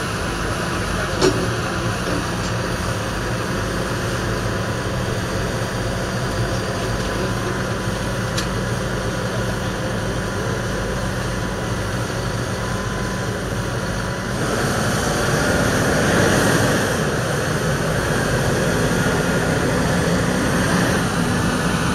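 A tractor's 6.6-litre six-cylinder diesel engine, the JCB Fastrac 4220's, running steadily, then picking up and growing louder about fourteen seconds in. A single sharp click sounds about a second in.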